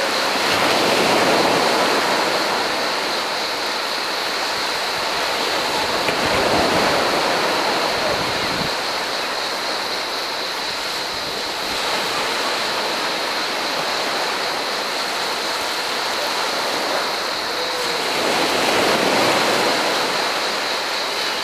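Small waves breaking and washing up a sandy beach, the surf swelling and ebbing every five or six seconds, under a steady high buzz of cicadas.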